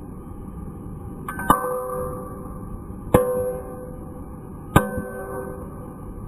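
Hammer blows on hot steel laid on a Ford F-150 brake rotor used as an anvil: three heavy strikes about a second and a half apart, each leaving the cast iron rotor ringing with a bell-like tone. A light tap comes just before the first blow.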